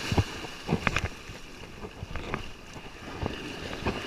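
Wind buffeting the microphone over breaking surf, with a few short sharp knocks scattered through.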